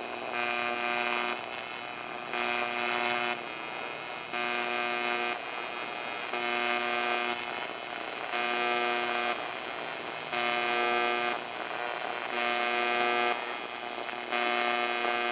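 Pulsed AC TIG welding arc on aluminium from a Sanjoe TIG200 AC/DC welder: a steady electric buzz that swells and drops about once every two seconds as the current pulses between a 120 A peak and a 55 A background, a slow half-hertz pulse that the welder finds too slow.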